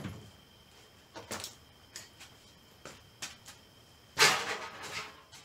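Scattered light clicks and knocks of parts and tools being handled while a car interior is stripped, then a louder rattling scrape about four seconds in.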